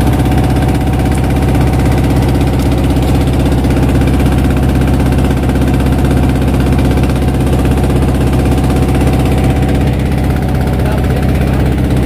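Wooden boat's engine running steadily while the boat is underway, a constant even drone with no change in speed.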